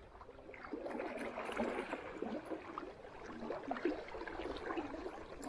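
River water running and gurgling, an uneven, bubbling wash.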